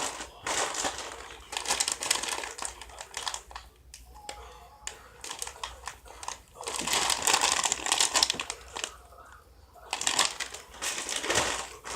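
Crinkly plastic snack packaging being handled and rustled, in about four bursts with short pauses between them.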